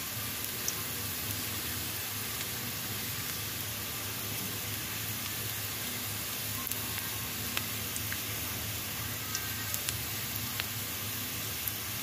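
Sliced onions, ginger and bay leaves frying in oil in a wok: a steady sizzle with a few small pops.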